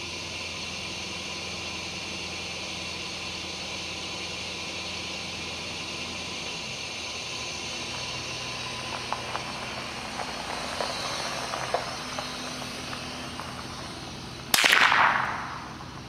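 A single .22 rimfire rifle shot about fifteen seconds in: a sharp, loud crack that dies away over about a second. Before it, a steady engine-like hum runs underneath.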